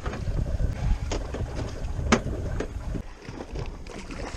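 Wind rumbling on the microphone aboard a small boat offshore, with a few sharp knocks or splashes over it.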